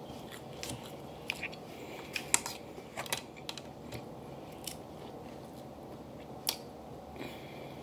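Boiled snow crab legs being cracked and picked apart by hand and eaten: scattered sharp shell cracks and clicks, several close together a couple of seconds in and one more near the end, with chewing.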